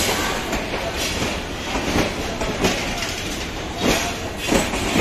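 Bangladesh Railway passenger coaches rolling past close by: a steady rumble of wheels on rail, with repeated clacks as the wheels cross rail joints.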